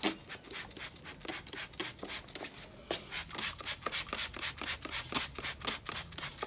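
Rapid back-and-forth scrubbing of a car wheel, cleaning off penetrating oil. The strokes start out sparse and soon settle into about five or six a second.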